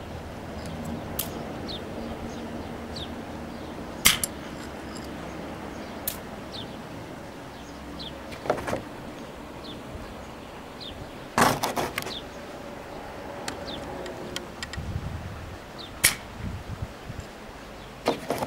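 Homemade semi-automatic pneumatic airgun, built around a quick exhaust valve and a slide valve, firing airsoft BBs: about six sharp pops, two to five seconds apart.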